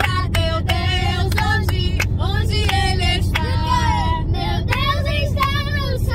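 A young girl singing a worship song unaccompanied inside a moving car, over the steady low rumble of the car's engine and road noise.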